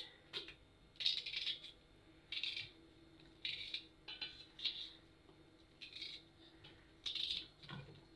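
Knife cutting through an onion held over the pot, about seven short crisp crunching cuts at irregular intervals.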